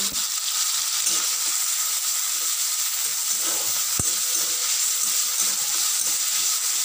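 Chopped onion sizzling in hot oil in a kadhai, a steady hiss, with one light knock about four seconds in.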